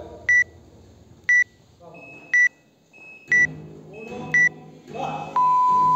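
Workout countdown timer beeping: five short high beeps, one a second, then a long lower beep about five seconds in that signals the start of the workout.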